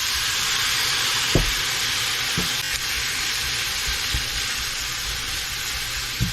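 Food sizzling in a frying pan, a steady hiss, with a few soft low knocks.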